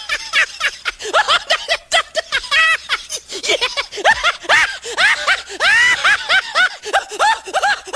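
Men laughing hard, in a quick run of short, high-pitched bursts, several a second.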